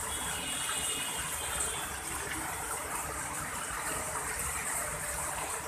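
Rain falling steadily, a dense even hiss of water.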